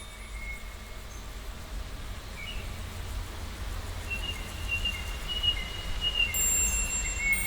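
Edited nature ambience for a sea-and-nature sound effect: a steady low rumble with thin, held high whistling tones over it. Higher tones join near the end.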